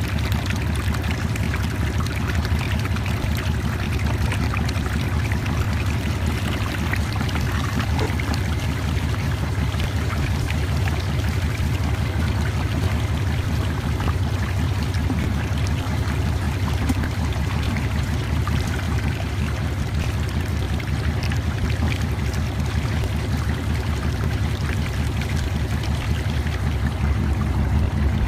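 Water and sand poured from a plastic bucket onto a shaking table's riffled deck, with water running steadily over the deck. A steady low rumble sits underneath.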